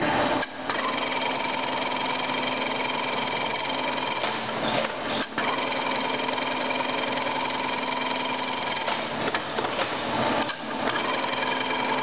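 Chain-link fence weaving machine running steadily, a mechanical hum with several held tones, dipping briefly about half a second in, near five seconds and again near ten and a half seconds.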